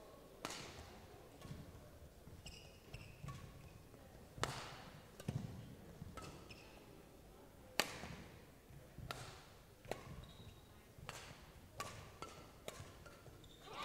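Badminton rally: sharp racket strikes on the shuttlecock every second or so, echoing in a large hall, the hardest hit about eight seconds in. Shoes squeak briefly on the court surface between hits, with low footfall thuds.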